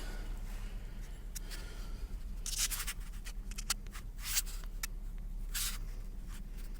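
Irregular scuffs and scrapes of footsteps on a muddy, rubbish-strewn floor, with a steady low hum underneath.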